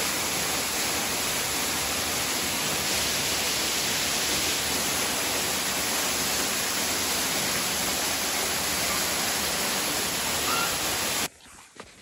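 Steady rush of water falling from a partly frozen waterfall, spraying down past icicles inside a cave. It cuts off suddenly near the end.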